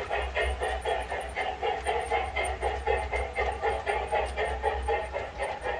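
Music with a fast, even beat, about four to five pulses a second, played through the speaker of a small add-on MP3 player.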